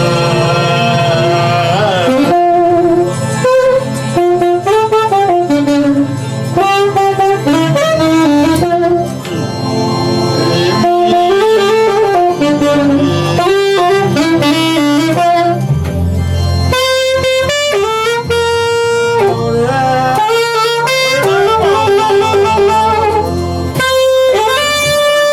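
Music: a saxophone playing a winding melody with wavering held notes over a steady band backing.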